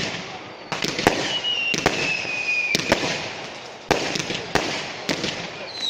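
Fireworks going off: sharp bangs about once a second with crackling between them, and a long whistle that falls slowly in pitch about a second in.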